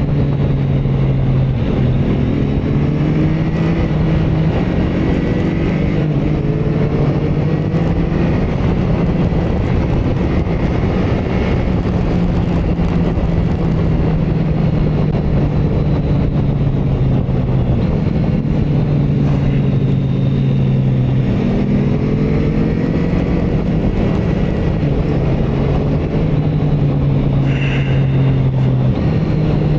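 Motorcycle engine running while the bike is ridden through curves, its pitch dipping and rising several times as the rider eases off and opens the throttle.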